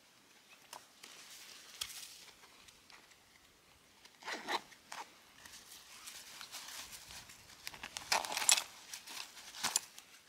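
Short bursts of rustling and scraping, like material being handled or torn, in two main clusters: about four seconds in and again, louder, near the end, with a few single clicks between.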